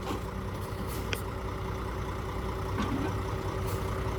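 Heavy machine engine running steadily, a low even drone with a faint steady tone on top and a few small clicks.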